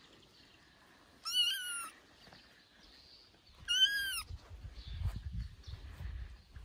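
Three-week-old kitten meowing loudly twice: a short, high-pitched cry about a second and a half in and another about four seconds in, each rising a little and then falling.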